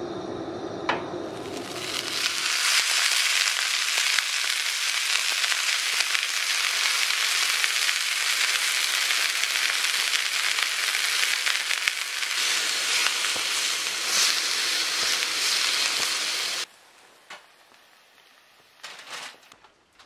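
Marinated, pre-cooked beef sizzling loudly as it sears in a cast-iron skillet over a propane camp stove, starting about two seconds in and cutting off suddenly near the end. A click comes about a second in, and a few faint rustles follow the cut.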